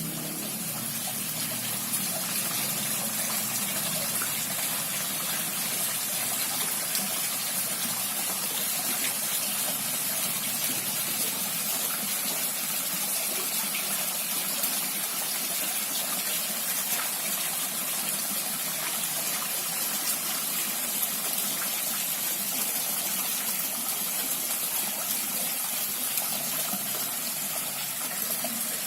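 Small artificial waterfall pouring steadily down a sculpted cliff relief into a garden pond, a constant splashing rush of water.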